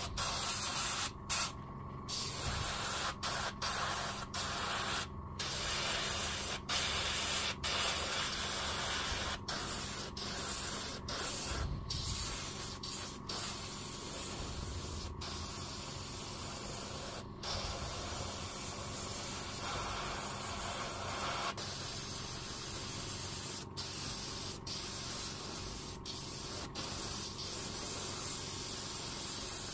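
Airbrush spraying paint with a steady hiss, cut by many brief pauses where the trigger is let off, over a faint steady hum.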